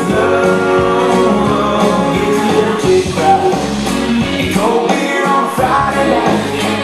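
A recorded song with singing, played loud over a DJ's sound system for dancing.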